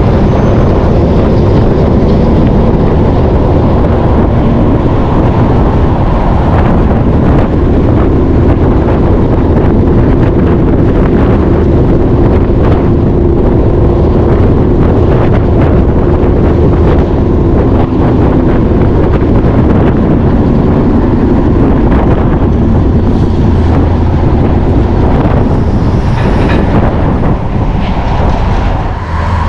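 Heavy diesel engine running steadily, with wind buffeting the microphone.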